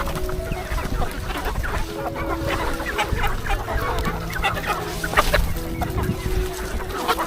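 Many chickens clucking together while they are fed radish leaves, with short calls coming thick and fast throughout.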